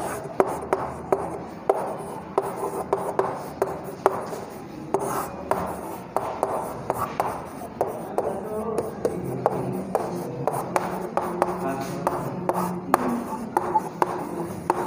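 Chalk writing on a chalkboard: an irregular run of sharp chalk taps and short scratchy strokes, several a second, as words and numbers are written.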